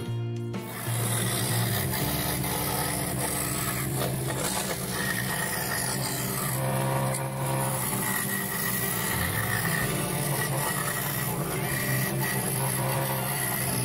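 Record Power scroll saw running steadily, its fine blade sawing through a thin piece of wood as the work is turned along a curved line.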